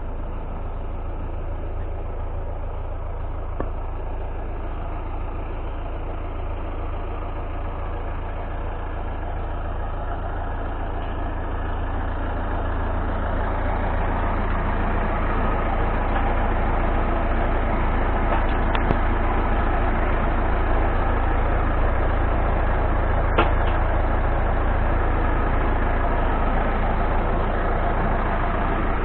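Drill rig engine running steadily, growing louder and fuller about twelve seconds in. A couple of short sharp knocks come later.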